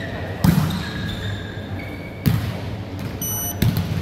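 A volleyball in play thumps three times, with brief high squeaks in between.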